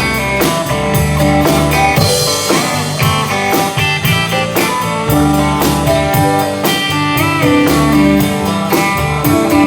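Instrumental intro of a country-rock song: electric guitar over bass and drums keeping a steady beat, with a bent guitar note about seven seconds in, before the vocals begin.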